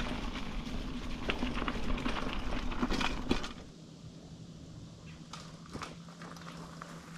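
Footsteps crunching through dry fallen leaves on a woodland trail, a dense run of crackles and rustles. About three and a half seconds in it drops to a quieter stretch with a few light clicks and a faint steady hum.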